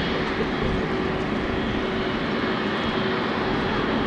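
Airbus A330-300 jet airliner's twin GE CF6-80E1 turbofans running: a steady rush with a fixed whine, holding level throughout.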